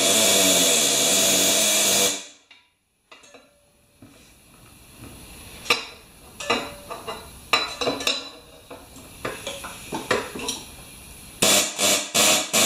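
Pneumatic impact wrench hammering on a lawnmower engine's flywheel nut in two long bursts, one at the start and one near the end, with scattered clicks and knocks in between. The nut does not come loose.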